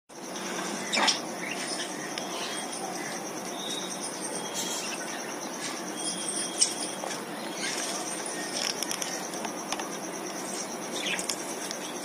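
Finches and a budgerigar bathing in a shallow clay water bowl: water splashing and wings fluttering in short bursts, with a few brief chirps, over a steady hiss.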